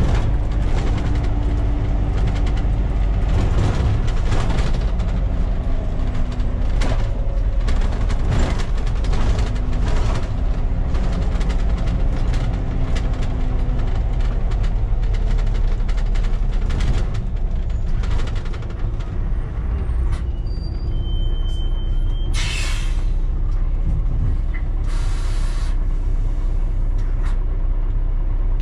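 Volvo B7TL double-decker bus on the move, heard from the cab: its six-cylinder diesel engine and drivetrain running loud, with the pitch shifting as it changes gear and the cab rattling. Two short air hisses come about 22 and 25 seconds in, from the air brakes as the bus slows for traffic.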